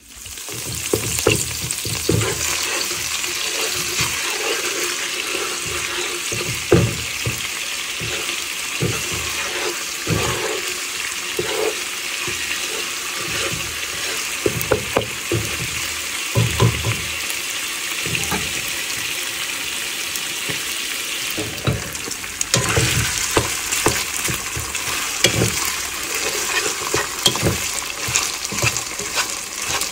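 Curry paste and garlic sizzling in hot oil in a frying pan, fried to bloom their aroma before the rice goes in, then rice stir-fried in the same oil. A wooden spatula scrapes and knocks against the pan as it stirs, and the sizzle turns more crackly near the end.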